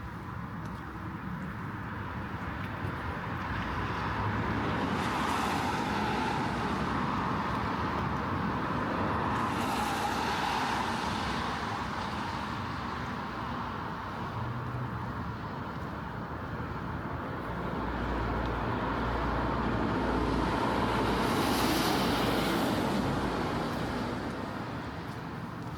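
Cars passing one after another on a wet residential street, their tyres hissing over the pavement. Three passes swell up and fade away, about 5, 10 and 21 seconds in, and the last comes with a deeper engine rumble.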